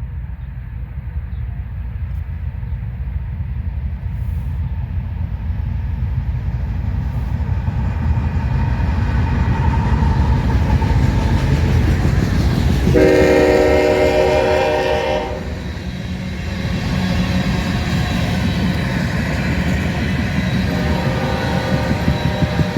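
Freight train rumbling past, growing louder, with the diesel locomotive's air horn sounding one loud blast of about two seconds just past halfway and a quieter blast starting near the end.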